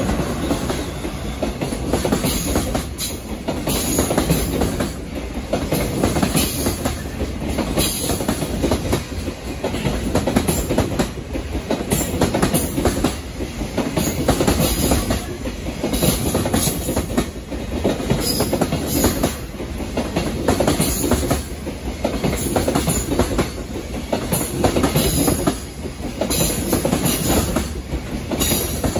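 A long JR Freight container train passing close by: the EH500 electric locomotive goes past at the start, then the container flat wagons roll by with a steady wheel rumble and a repeated clickety-clack of wheelsets over rail joints.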